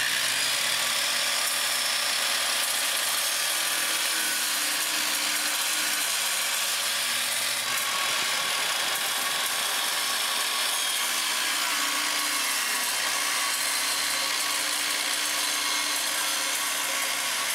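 Electric saw running and cutting quarter-inch acrylic sheet: a steady, even sawing noise without pauses.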